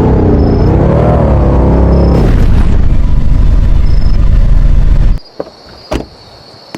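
Fire truck engine running loud with a deep rumble, its pitch falling and rising as it revs, then giving way to a rushing noise. The sound cuts off abruptly about five seconds in, leaving quiet with a couple of light knocks.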